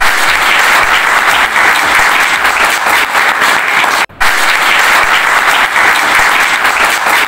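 Audience applauding: dense, steady clapping, cut off for an instant about four seconds in.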